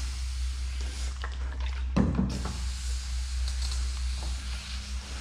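Hand-pump pressure sprayer misting solution onto the edge of a car hood with a hiss, over a steady low hum. A single thump comes about two seconds in.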